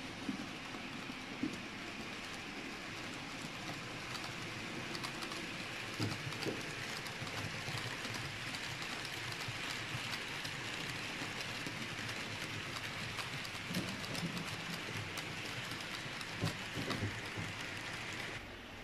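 Model railway freight train rolling past on the layout track: a steady rolling hiss with many small clicks from the wheels, dropping away sharply near the end as the last wagons pass.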